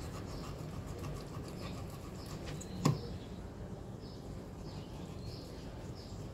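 Birds chirping faintly over a steady low background noise, with one sharp knock about three seconds in.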